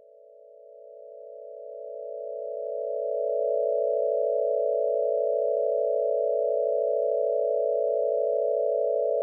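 A steady electronic tone, several close pitches held together with no change in pitch, like a dial tone, fading in over the first three seconds or so and then held at one level.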